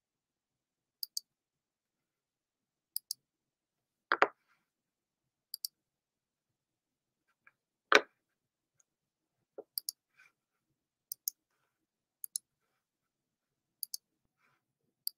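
Computer mouse clicking: short, sharp paired clicks every second or two, heard while a screen share is being set up. Two louder knocks come about four and eight seconds in.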